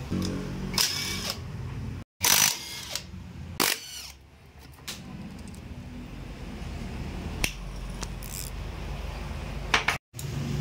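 Metal clinks and clatter of scooter engine and CVT parts being handled and worked with hand tools, a few sharp knocks standing out over a low steady shop background. The sound drops out completely twice, briefly, about two seconds in and near the end.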